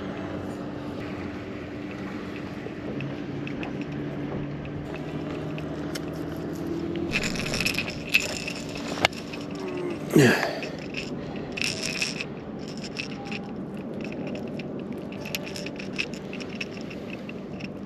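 Scraping and rattling of skipjack bait being cut and handled on a boat, with a sharp click and a quick falling squeak in the middle. A steady low hum runs under the first several seconds and then stops.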